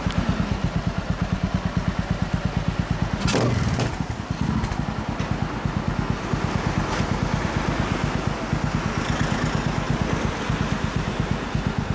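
MZ 250 single-cylinder racer with a White House exhaust idling, its exhaust beating evenly at about seven pulses a second. A brief louder noise cuts across it a little over three seconds in.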